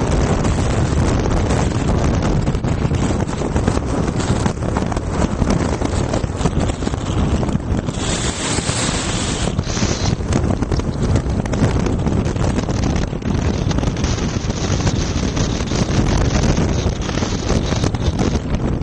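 Wind buffeting the microphone: a loud, steady rushing noise. A brighter hiss stands out briefly about eight seconds in.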